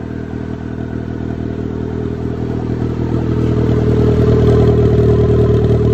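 1991 Mazda Miata's turbocharged 1.6-litre four-cylinder running steadily, exhausting through a short open straight pipe off the turbo. It grows louder about halfway through.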